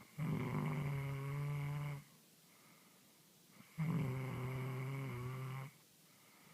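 A sleeping person snoring: two long, steady buzzing snores of about two seconds each, with quiet pauses between them.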